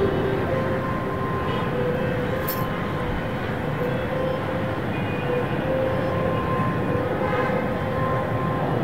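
Steady city rumble of distant traffic, with faint held tones coming and going over it.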